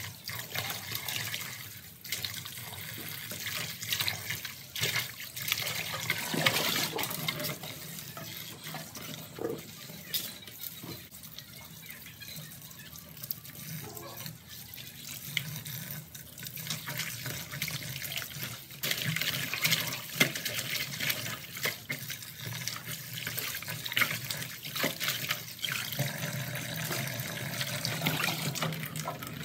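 Tap water running into a plastic basin while hands swish and rub bunches of water mimosa in the water, with irregular splashing.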